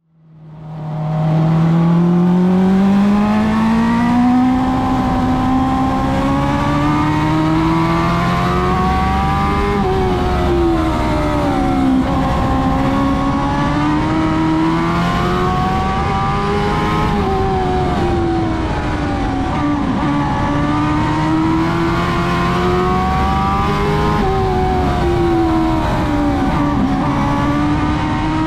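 Dwarf race car's motorcycle-derived four-cylinder engine running hard around the track, fading in over the first second or so as it accelerates. Its pitch then climbs and drops off in smooth swells about every seven seconds, rising down each straight and easing into each turn, at a steady loudness.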